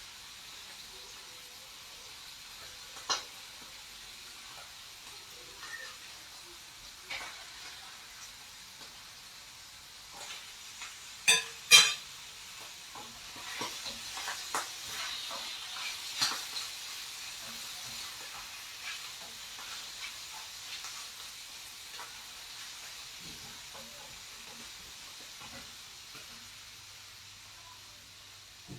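Food sizzling in a frying pan, the sizzle swelling for a few seconds past the middle, with utensils knocking and scraping against the pan. Two loud clatters come close together a little before halfway.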